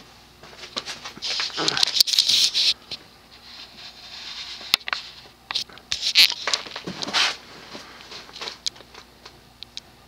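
Irregular rustling and scraping with scattered clicks, loudest about a second and a half in and again around six to seven seconds in, like handling noise near the microphone. Underneath runs the faint steady hum of a 1984 Evergo 36-inch industrial ceiling fan motor on low speed.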